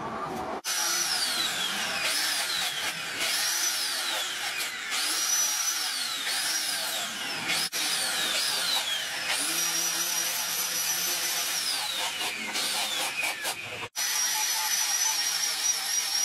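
An electric angle grinder with a sanding disc shapes a wooden knife handle. Its high motor whine sags in pitch again and again as the disc bites into the wood, then jumps back up, and settles into a steady whine near the end. The sound cuts out sharply twice.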